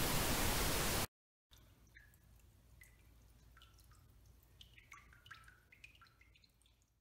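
Loud steady static hiss that cuts off suddenly about a second in. After a short silence, water drips plink into water: scattered short falling plinks, thicker near the end, over a faint low hum.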